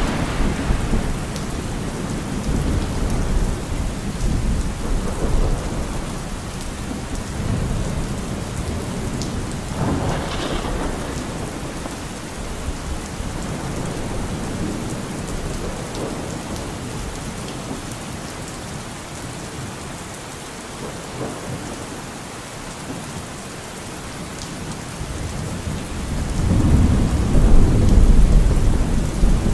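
Steady rain falling, with low rolling rumbles of thunder; one swells about ten seconds in and the loudest builds near the end.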